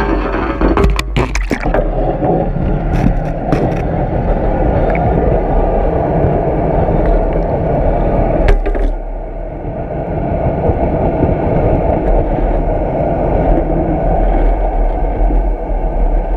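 Turbulent tailrace water heard underwater through a GoPro housing: a loud, muffled rushing rumble. Several sharp knocks come in the first few seconds and one more a little past halfway.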